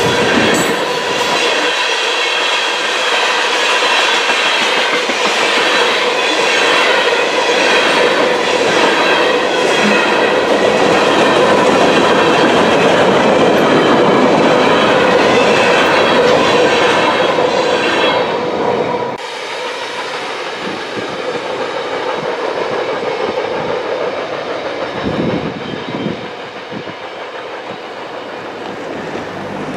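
Freight train of loaded tank cars rolling past at track speed, about 40 mph: a steady rumble and clatter of steel wheels on the rails, with a steady ringing tone running through it. About two-thirds of the way in the sound drops suddenly to a quieter, more distant rumble as the train moves away.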